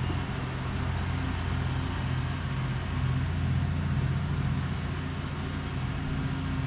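Steady low mechanical hum with a wash of noise, holding level throughout, from background machinery such as a fan.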